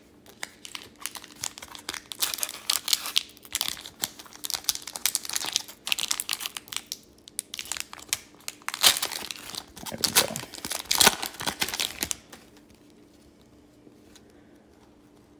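Upper Deck Series 2 hockey card pack wrapper crinkling and tearing as it is handled and ripped open, in quick crackly bursts that stop about twelve seconds in.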